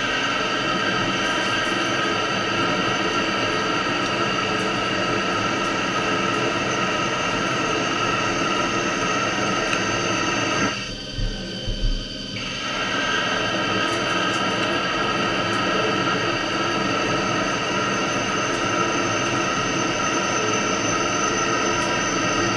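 CNC lathe cutting, a steady high whine and hiss of the tool working the spinning workpiece. It drops away briefly about halfway through, then picks up again the same.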